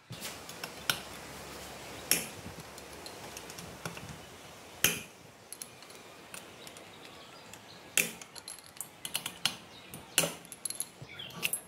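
Steel hand tools clinking against the aluminium cylinder head of a small two-stroke scooter engine as a T-handle socket wrench works the head nuts. Scattered sharp metallic clinks and knocks, several in quick succession near the end, over a steady hiss in the first half.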